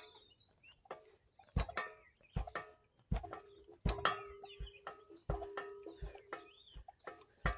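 Outdoor gym exercise machine worked through repetitions: a knock about every three-quarters of a second with a squeaky creak from the metal pivots in between.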